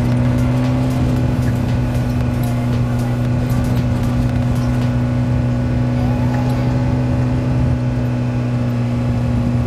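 Dune buggy engine running loud at steady, unchanging revs under way, an even drone with no gear changes.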